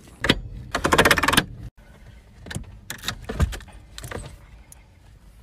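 A bunch of keys jangling in a dense rattle about a second in, followed by a few scattered clicks and light rattles.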